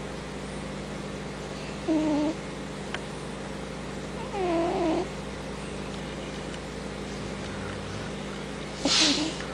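A cat meowing three times, short bending calls about two seconds in, mid-way and near the end, the middle one the longest; the last comes with a sharp hissing burst. A steady low hum runs underneath.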